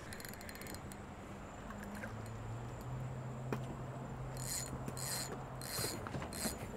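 Spinning fishing reel clicking as a fish comes on the line: a quick run of rapid clicks at the start, then four short bursts of clicking about half a second apart in the second half. A low steady hum runs underneath in the middle.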